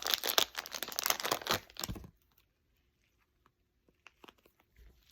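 Plastic wrapping being torn open and crinkled, a dense crackling for about two seconds that then stops, followed by a few faint clicks.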